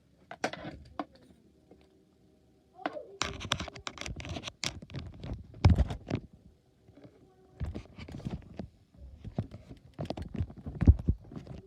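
Handling noise on the recording device as it is plugged in and set in place: scratches, clicks and knocks against the microphone in several irregular clusters with short pauses between them.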